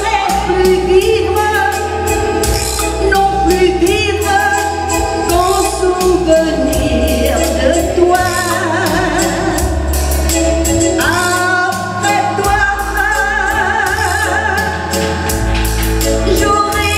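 A woman singing a slow ballad live into a microphone, with vibrato on the held notes, over electronic keyboard accompaniment with a bass line and a steady drum beat.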